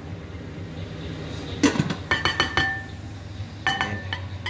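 Several short ringing clinks of kitchenware being handled, a glass pot lid and ceramic bowls, in three clusters: about a second and a half in, around two seconds in, and near the end.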